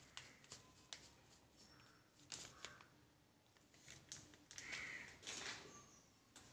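Near silence: faint room tone with scattered soft clicks and a few brief rustles.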